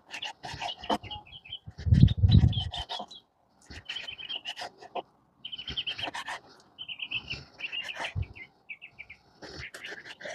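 Small birds chirping and trilling in quick repeated notes, with scattered sharp clicks of a knife cutting on a wooden cutting board. A brief low rumble about two seconds in is the loudest sound.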